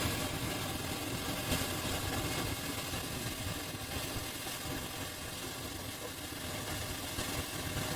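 A small electric motor or blower running steadily with an even whirring hiss.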